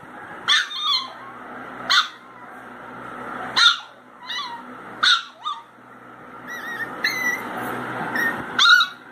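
Pinscher puppies crying: short, sharp, high-pitched yips about once a second, then a run of drawn-out high whines in the last few seconds, ending on a loud yip.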